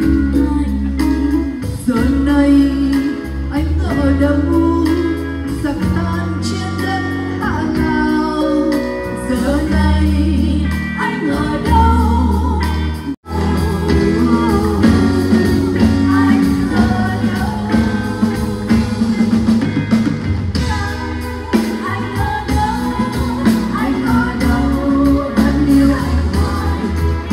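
A singer performing a song backed by a live band. The sound cuts out for an instant about halfway through.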